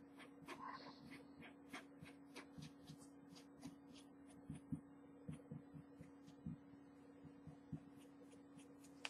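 Faint, irregular soft taps of a fabric painting pen's tip dabbing and stroking on a T-shirt, a few per second, over a steady low hum.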